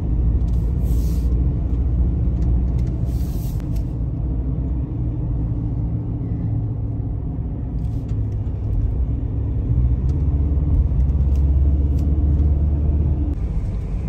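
Ford Ranger Raptor pickup driving at steady speed, heard from inside the cab as a continuous low rumble of engine and road noise, growing a little louder about ten seconds in.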